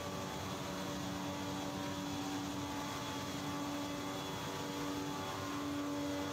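Electric-motor-driven rice husk pneumatic conveyor running: a steady drone with a constant held tone over an even rush of air through the duct.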